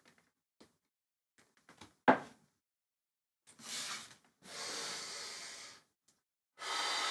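A person breathing deeply and audibly. A sharp, short intake of breath comes about two seconds in, then three long, loud breaths, each longer than the one before.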